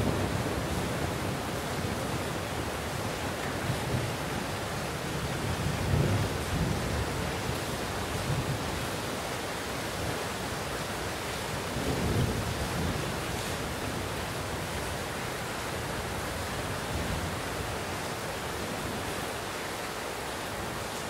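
Steady heavy rain with distant thunder: low rolling rumbles swell up a few times, the strongest near the start and about six and twelve seconds in, and the rumbling eases off toward the end.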